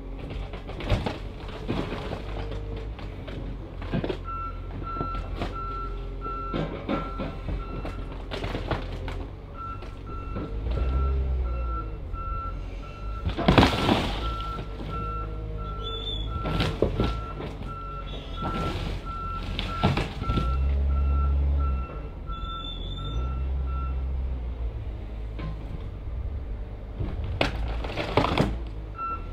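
A heavy machine's backup alarm beeping about twice a second while its engine rumbles and revs in surges, with loud bangs and crunches of metal as a scrap car body is smashed; the loudest bang comes about halfway through, and the beeping stops for a few seconds near the end.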